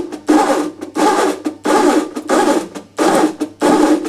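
Wire-tensioning test rig being worked in repeated, evenly spaced strokes, about six in four seconds, each a rough, rubbing sound. This is the rig pulling fencing wire with a figure-eight knot up toward breaking strain.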